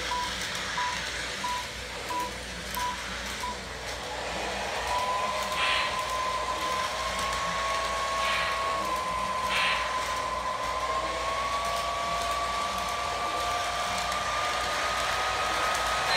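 Lionel LionChief O-gauge model trains running around the track, a steady rolling rumble under a motor whine that slowly rises in pitch from about five seconds in, with a second, lower whine joining later. A row of six short, evenly spaced beeps comes in the first few seconds, and a few short hisses come in the middle.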